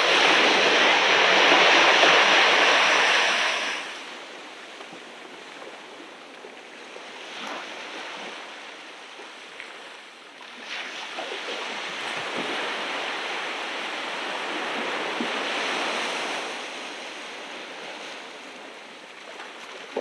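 Ocean waves washing onto the beach: a loud surge of surf in the first four seconds that dies away, then a second, softer and longer wash from about ten seconds in.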